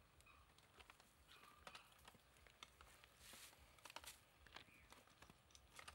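Near silence with scattered faint clicks and crinkling: gloved hands handling small medical supplies.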